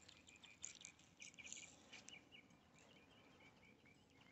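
Near silence with faint, scattered high chirps, including a quick run of short notes a little over a second in, and a few soft ticks.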